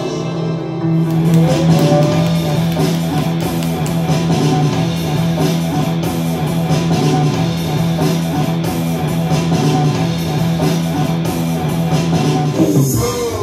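Guitar-led music with a steady bass line, filling out about a second in and changing near the end.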